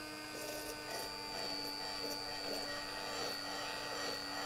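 Stick blender (immersion blender) running steadily in a tall jar, a constant motor hum with a high whine, while sunflower oil is blended in to emulsify a Caesar salad dressing.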